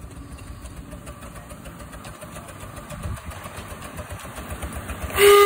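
Miniature steam locomotive 'Afon Glaslyn' No. 1 running, its exhaust beating rapidly and growing louder as it comes closer. Near the end its whistle sounds, one steady loud note.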